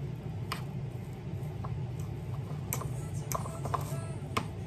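Metal fork stirring and mashing tuna and avocado in a ceramic bowl: scattered clinks and scrapes of the fork against the bowl, a few early on and several in quick succession in the second half, over a steady low hum.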